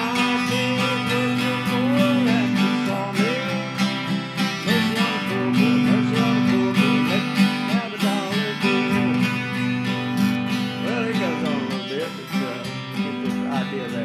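Acoustic guitar strummed in a steady country rhythm, with a wavering melody line over the chords: an instrumental stretch of an old country song about a sawmill.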